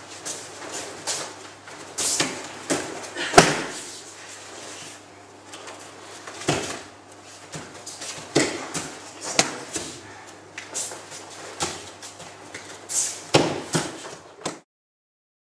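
Repeated thuds and slaps of bodies hitting tatami mats as an aikido partner is thrown and takes breakfalls, over a steady low hum. The sound cuts off suddenly near the end.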